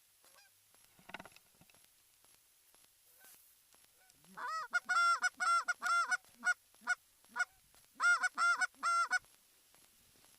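Goose honks: about a dozen loud, close honks in two quick runs, starting about four and a half seconds in, each honk bending in pitch.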